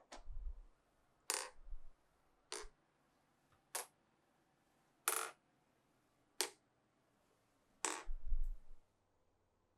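Glass marbles clacking against the wooden pieces of a marble run: seven sharp clacks, roughly one every second and a quarter, a few of them with a short dull thud.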